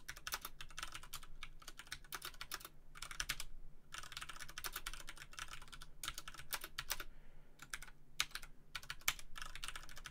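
Typing on a computer keyboard: quick runs of keystrokes broken by short pauses.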